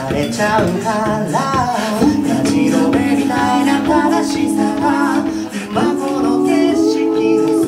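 A cappella group singing in harmony into microphones: a lead voice over held chorus chords and a bass voice, with vocal percussion keeping the beat.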